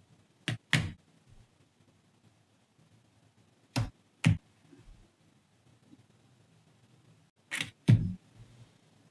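Three pairs of sharp clicks, the pairs about four seconds apart, each pair two clicks in quick succession over a quiet room.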